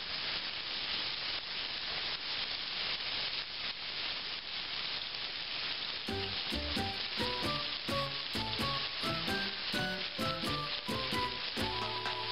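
Chicken breasts sizzling in oil in a stainless steel sauté pan under a splatter screen, a steady frying hiss. From about halfway through, sharp crackling pops join the sizzle.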